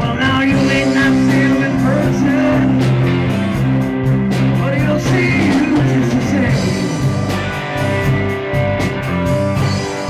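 Live rock band playing through a small PA: electric guitar, bass guitar, keyboard and drum kit, with a steady drum beat.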